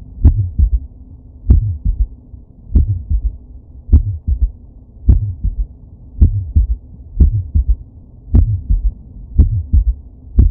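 Recorded heartbeat with a third heart sound (S3 gallop): low thumps repeating a little under once a second, each beat a lub-dub followed closely by a soft extra thud. An S3 is a ventricular gallop from rapid early filling of the ventricle, typical of heart failure with volume overload.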